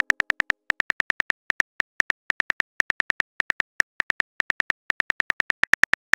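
Simulated phone keyboard clicks of a message being typed out, one short tick per letter, about seven a second in quick runs with brief pauses.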